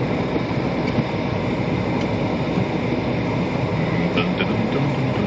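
Steady rumble of a moving car heard from inside the cabin: engine hum and tyre noise on a snowy road.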